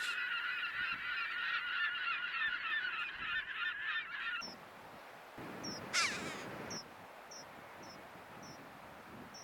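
Dense chorus of many seabirds calling over one another at a colony, cutting off abruptly about four seconds in. Then it is quieter, with a single call sliding downward in pitch about six seconds in and faint, regularly spaced ticks.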